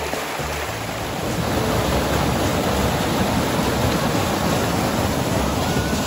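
River water rushing over rocks and small cascades, a steady rushing noise that grows louder about a second and a half in.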